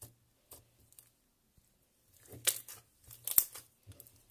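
Butter slime squished and pressed by hand, giving wet clicks and crackles. It is nearly quiet for the first two seconds, then a burst of crackling and a sharp single click come in the second half.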